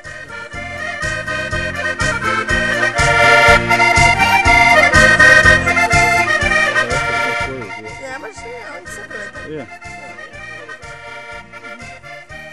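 Portuguese folk music played on a concertina (diatonic button accordion), chords over a steady bass pulse. It swells louder about two seconds in and falls back around eight seconds.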